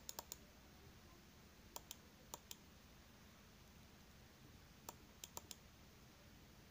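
Faint computer mouse clicks in three quick clusters of about four clicks each, roughly two and a half seconds apart, over near-silent room tone.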